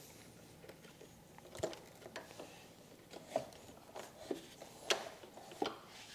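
Light, irregular clicks and taps, about seven of them, from wiring-harness cables, ring terminals and a terminal bolt being handled by hand at a motorcycle battery.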